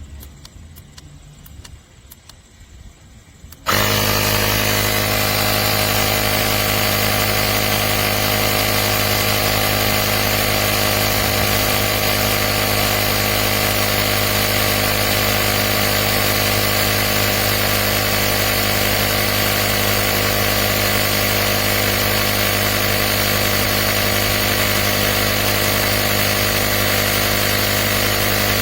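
Portable cordless tire inflator's compressor switching on suddenly a few seconds in and running loud and steady.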